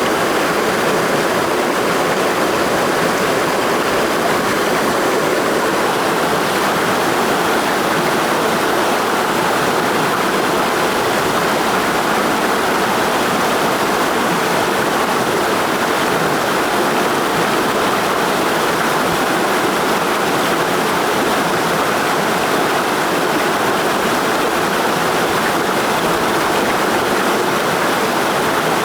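Mountain stream rushing over rocks in a steady, even roar of water.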